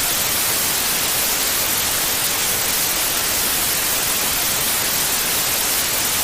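Loud, steady static hiss, like a radio or broadcast signal with nothing on it but noise, with no voice or tone in it.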